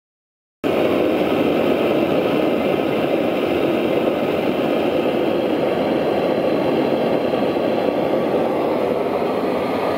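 A blowlamp burner's flame burning steadily with a constant rushing noise and no engine rhythm, heating the vaporiser of an old Tangye stationary petroleum engine before it is started. The sound cuts in suddenly just after the start.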